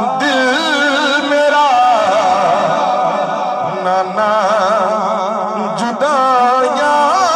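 A man singing a devotional manqabat in praise of Imam Husain into a microphone, drawing out long, wavering, ornamented notes over a steady drone.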